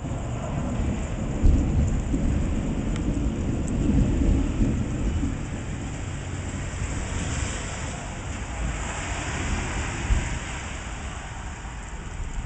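Rolling thunder over steady rain: a low rumble with a sudden louder peak just over a second in, dying away over the next several seconds and leaving the hiss of falling rain.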